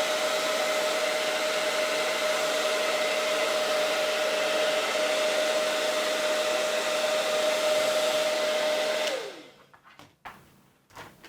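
Handheld hot-air blower running steadily with a steady whine over its rush of air, drying off rubbing alcohol. About nine seconds in it switches off, the whine falling as the motor spins down, then a few light knocks.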